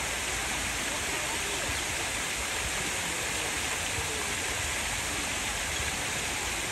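Steady rushing of running water, even and unbroken, with no call or splash from the heron standing above it.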